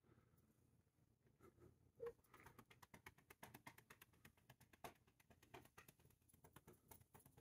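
Faint, quick pats of a hand on a cat's furry back, several soft pats a second, starting about two seconds in.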